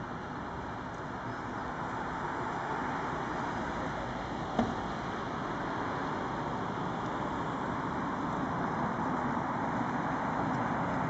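Steady road traffic noise from cars and vans nearby, an even rushing hum that grows slightly louder toward the end, with one short knock about halfway through.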